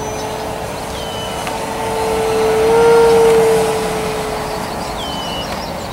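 E-flite Power 90 brushless electric motor spinning a 15x7 propeller on a Hangar 9 Twist 60 radio-controlled airplane in flight: a steady whining drone that swells to its loudest about halfway through, then fades.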